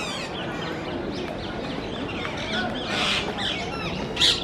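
A flock of birds calling: many short, high calls overlapping, with louder calls about three seconds in and again just before the end.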